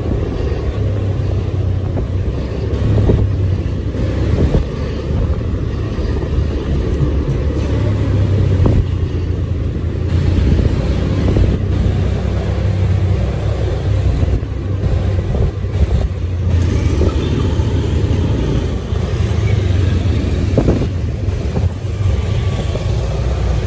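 Steady low rumble of a moving road vehicle, engine and road noise heard from on board during a ride.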